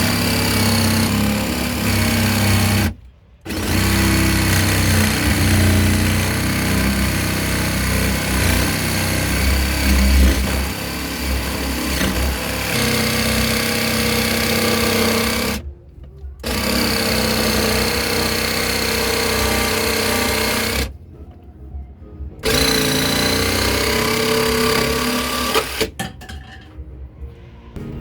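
Jigsaw cutting a speaker hole in a panel, running steadily with a few short breaks and stopping near the end.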